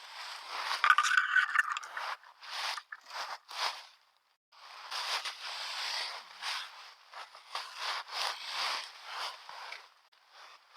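Dry leaf litter crunching and scraping in short irregular strokes, stopping briefly about four seconds in.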